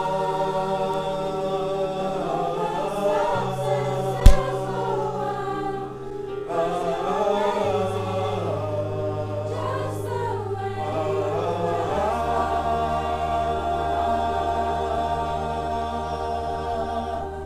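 A group of teenage voices singing together in harmony as a small choir, holding long chords whose bass note changes every few seconds; the last chord ends near the end. A single sharp knock sounds about four seconds in.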